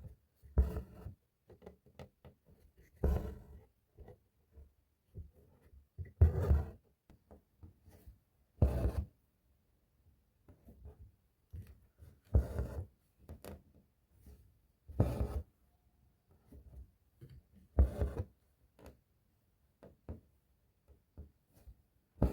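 Hand embroidery: needle and thread drawn through fabric, one brief pull about every two to three seconds, with small clicks between the pulls.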